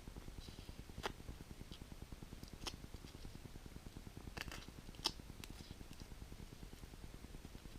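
A few sharp, light clicks and taps, spaced a second or more apart with a small cluster midway, from small plastic items being handled, over a low steady hum.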